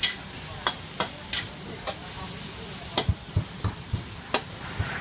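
Metal ladle scraping and clanking against a wok as minced pork and shrimp are stir-fried over a gas flame, under a steady sizzle. About three seconds in, a quicker run of dull knocks joins the clanks.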